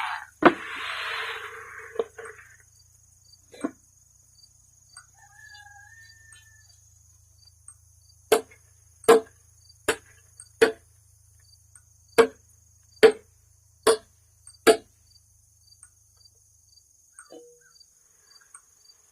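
A rushing, rattling pour with a sharp knock at the start, then near the middle a run of about nine sharp knocks on metal, evenly spaced a bit under a second apart. This fits working the cut-open water heater tank to get the sediment out. A faint, steady high-pitched trill runs underneath.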